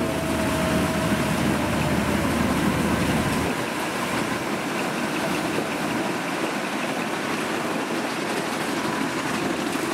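Kubota DC-70 combine harvester's diesel engine running steadily. Its deep low hum drops away about three and a half seconds in, while the rest of the machine noise carries on.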